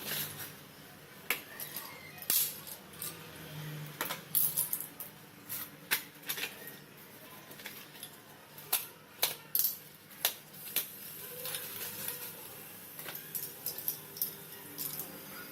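Slate pencils clicking and clinking against each other and their packaging as they are handled, in irregular sharp taps.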